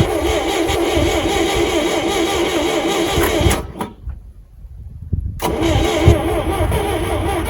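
Starter motor cranking an old Valmet forklift's gas (LPG) engine with an even, pulsing rhythm; the engine does not catch. Cranking stops a little past the halfway point for about two seconds, then starts again.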